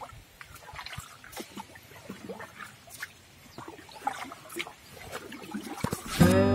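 Soft trickling and lapping of river water around a small wooden boat, with scattered small clicks and splashes. Acoustic guitar music comes in loudly near the end.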